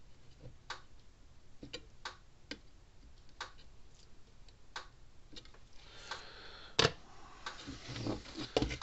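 Small, sharp, irregular ticks while a soldering iron presses desoldering braid onto a circuit-board solder joint, then a brief hiss, a louder click and some handling clatter near the end as the work is set down.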